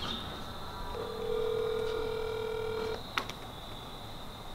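A smartphone on speakerphone plays the ringback tone of an outgoing call: one steady ring about two seconds long, starting about a second in. A short click follows the ring.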